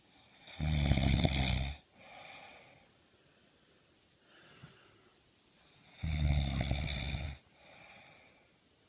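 Loud snoring: two long, buzzing snores about five seconds apart, each followed by a softer, shorter breath.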